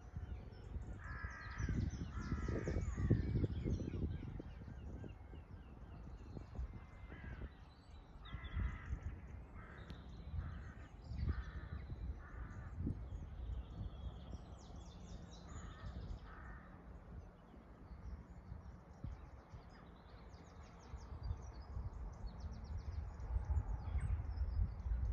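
Harsh calls of large birds, repeated in short runs of several notes, several times over. Higher chirping of small birds and a low rumble run underneath.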